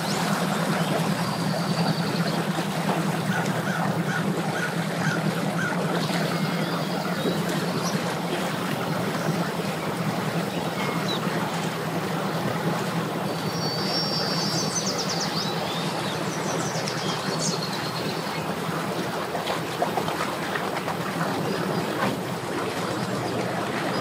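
Bass boat's outboard motor running steadily at low speed in gear, pushing the boat up onto its submerged trailer, with the propeller churning water.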